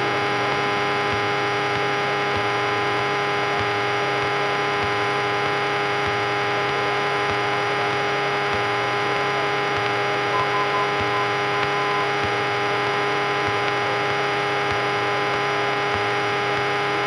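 Steady drone and electrical hum of a Cessna 172 in flight, heard through the cockpit headset and radio audio feed, with no change in pitch or level. A faint short tone sounds briefly about ten seconds in.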